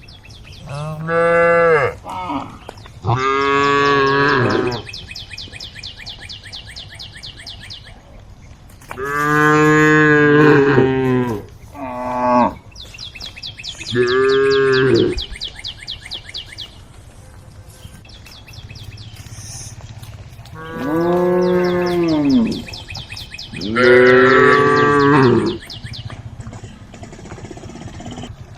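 Cows mooing repeatedly, about seven loud drawn-out moos of one to two seconds each, some coming in quick pairs. A steady high buzz runs faintly between the calls.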